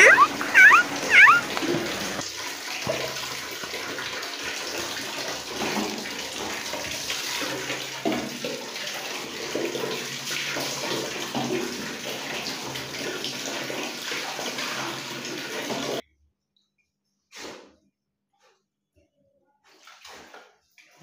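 Water poured from a mug splashing over a wet Labrador puppy and onto a tiled floor during her bath, a steady rush with scattered splashes that cuts off suddenly about sixteen seconds in. Near the start there are a few short high-pitched whines from the puppy.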